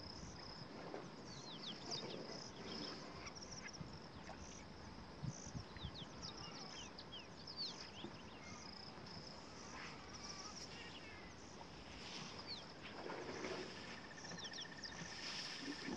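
Faint bush soundscape: a steady high insect buzz with scattered short, falling bird chirps, and a trill that comes in for the last couple of seconds.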